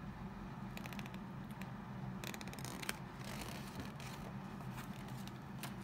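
Paper and cardboard packaging being handled: a run of quick clicks, a stretch of rustling, then scattered light clicks, over a low steady hum.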